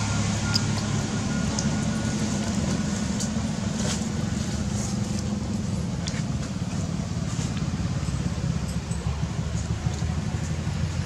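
Steady low engine rumble, like a motor vehicle running nearby, with a few faint clicks over it.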